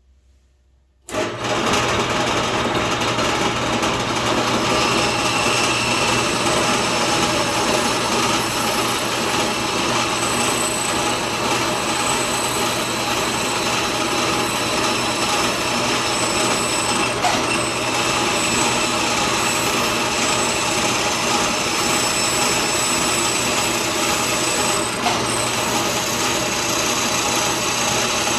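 Band saw running and cutting walnut boards into letter shapes: a steady motor hum with blade noise that starts suddenly about a second in, with two brief clicks later on.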